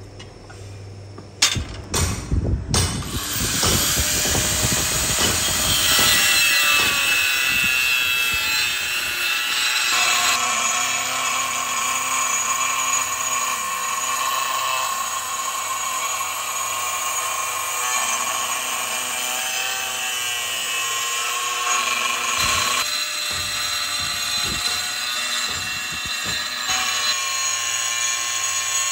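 A few knocks, then a Makita angle grinder with a thin cutting disc starts about three seconds in and cuts through carbon-steel leaf spring. Its whine shifts up and down in pitch as the disc bites into the metal.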